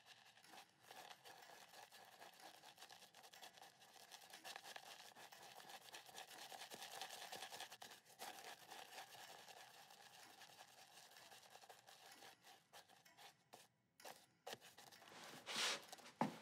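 Shaving brush swirled in a small metal soap dish to work up lather: a quiet, continuous bristly crackle that fades out after about twelve seconds. A brief louder swish comes near the end.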